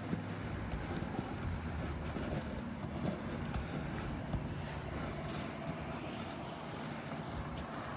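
Wind buffeting the microphone in a steady low rumble, with faint light taps and scraping as an asphalt shingle is worked up under the course above.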